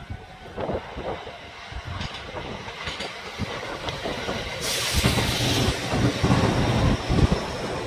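Kintetsu electric train passing close by, with uneven low thumps. A loud rush of noise comes in suddenly a little past halfway.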